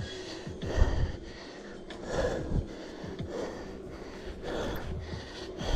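A cyclist breathing hard while pedalling, a heavy breath every second or so, over a low rumble.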